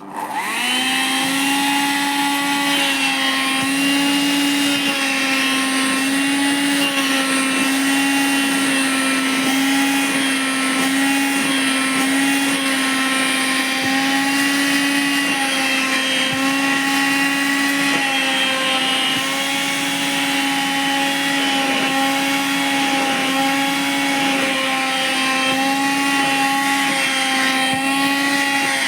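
Vacuum cleaner switched on, its motor spinning up within the first second, then running steadily with a high whine over a rush of air. The pitch wavers slightly now and then as the jeans are drawn against the suction.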